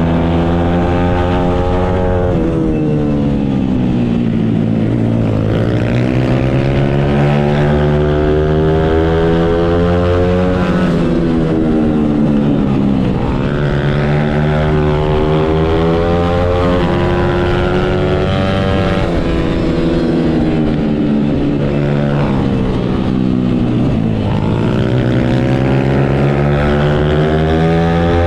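Stomp 140 pit bike's small single-cylinder four-stroke engine at race pace. The revs climb and then drop sharply several times as the rider works through the gears and brakes for corners.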